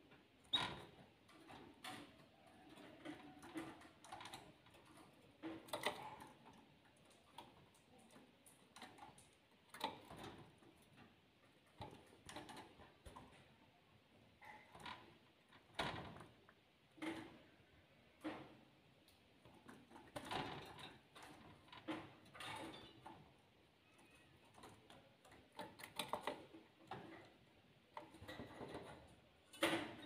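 Canaries moving about in a wire cage: irregular soft taps and clicks as they hop on the perches and wire and peck, about one every second or two.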